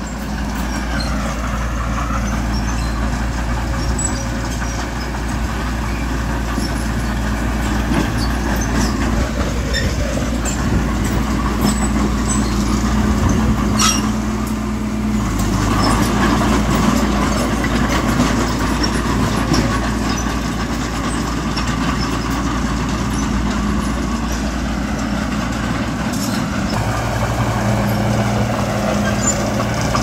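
Heavy diesel earthmoving machinery running steadily under work, its engine note shifting a little about halfway through, with a single sharp clank just before.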